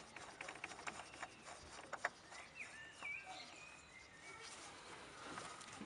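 Faint clicks and light knocks of a hand working down in a car's engine bay, with a few short bird chirps behind them about halfway through.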